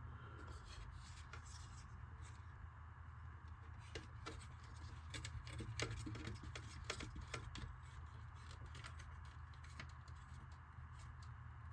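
Small screwdriver driving a tiny screw into plastic RC body parts: scattered light clicks and scrapes, busiest around the middle, over a low steady hum.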